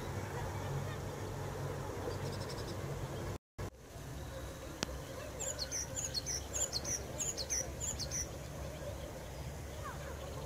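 A small bird sings a quick run of short, high chirps for about three seconds, starting around halfway through, over a steady low background rumble. The sound cuts out completely for a moment about a third of the way in.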